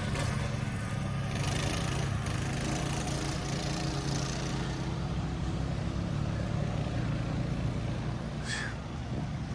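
A vehicle's engine running steadily as a low, even hum. About eight and a half seconds in there is one brief high squeak.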